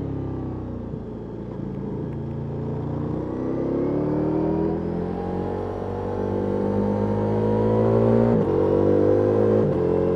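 Ducati Multistrada V4S Rally's V4 engine through an Akrapovic exhaust, heard on board: the revs fall away, then climb steadily under acceleration. The pitch drops sharply and rises again twice near the end, as the rider shifts up.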